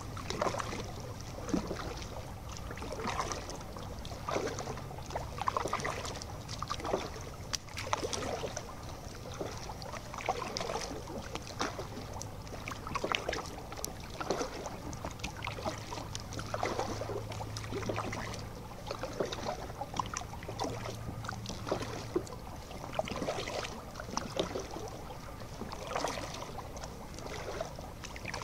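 Kayak paddle blades dipping and pulling through calm canal water in a steady rhythm, a soft splash about every second or so.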